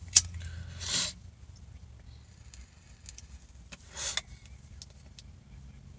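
A man taking a hit of cannabis and blowing out the smoke: a sharp click just after the start, a short breathy draw about a second in, and a longer breathy exhale about four seconds in.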